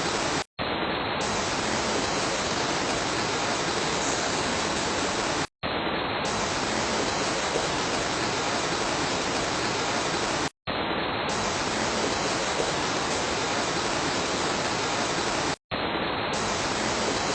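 Steady rain, an even hiss with no separate drops standing out, broken by a very short drop-out to silence about every five seconds.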